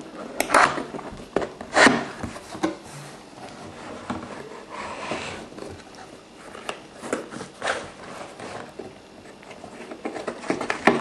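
Cardboard box and paper packaging being handled and rummaged through: irregular rustles, scrapes and light knocks.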